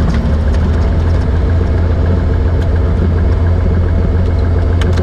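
Single-engine floatplane's piston engine and propeller running at low power while it taxis on the water, heard inside the cockpit as a loud, steady low drone.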